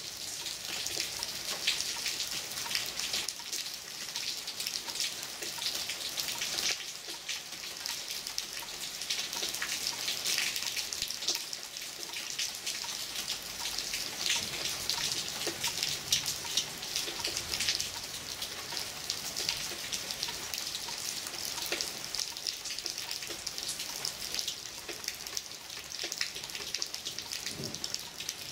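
Heavy thunderstorm downpour: a steady hiss of rain with many sharp individual drop hits close by.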